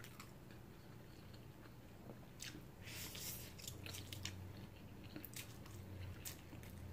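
Faint close-up eating sounds of a person eating spicy instant noodles: soft chewing and mouth clicks, with a short hissy slurp a little before the middle.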